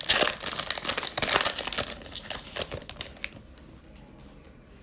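Foil wrapper of a Bowman Chrome baseball card pack crinkling as it is torn open and handled, stopping about three seconds in, followed by a few faint ticks of cards being handled.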